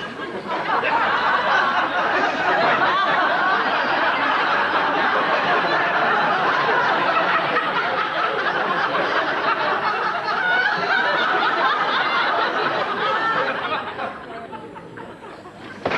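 Studio audience laughing, a long sustained wave of laughter from many people that builds about half a second in and dies away near the end.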